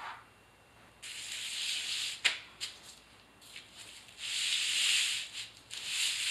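Glass mosaic tile sheets sliding and rustling on a large sheet of paper as they are laid out, in three bursts of hiss, with one sharp click a little over two seconds in.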